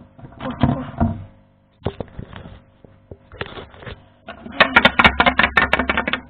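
Hard plastic toy figurines clicking and knocking against a wooden shelf as they are handled. About four seconds in, a fast run of taps, roughly ten a second, lasts about two seconds.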